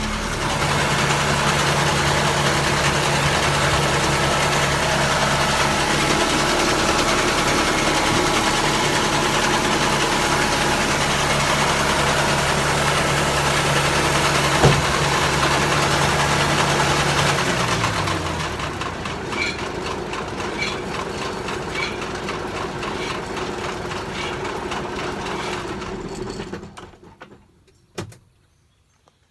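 Tractor engine running at operating RPM and driving a New Holland Roll Belt 450 round baler, with one sharp knock about halfway through. About 18 seconds in the engine is throttled down, its pitch falling, and it runs lower and quieter until the sound drops away near the end.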